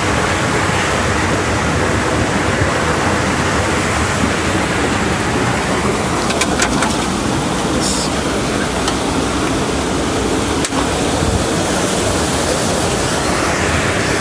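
Creek water rushing steadily over rocks, with a few brief clicks about halfway through.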